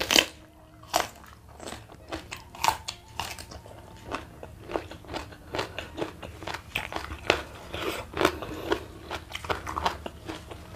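A sharp crunch as a bite is taken from a raw papaya stalk, then close-up chewing with many small crunches and wet clicks.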